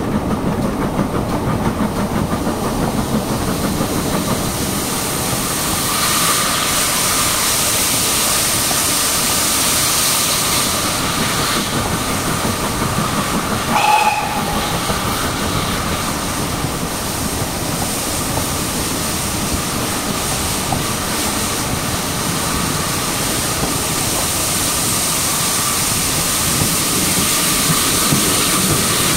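Steady running noise of a steam-hauled train heard from a carriage window behind GWR 4575-class 2-6-2 tank engine 5526. About halfway through, the locomotive gives one brief whistle.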